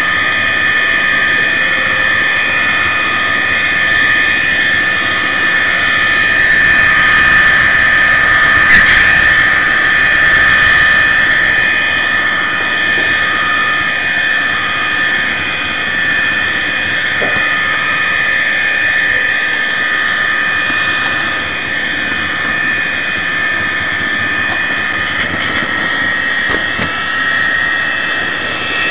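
LokSound decoder in a model Class 66 (EMD JT42CWR) diesel locomotive playing its diesel engine sound through the model's small speaker, mixed with the running whine of the model's motor and wheels on the track. A brief sharp click about nine seconds in.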